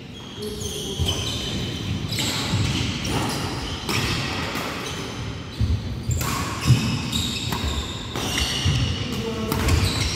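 Badminton doubles rally: repeated sharp hits of rackets on a nylon shuttlecock, with shoes squeaking and thudding on a wooden court, echoing in a large hall.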